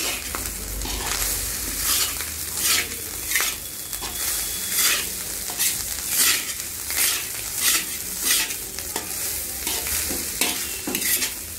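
Metal spatula stirring and tossing rice in a large wok, scraping the pan in regular strokes about every two-thirds of a second, over a steady sizzle of frying oil.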